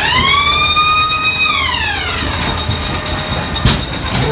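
A siren-like wail inside a ghost train rises quickly, holds for about a second and a half, then slides down and fades. Under it the ride car rumbles along its track, and a sharp knock comes near the end.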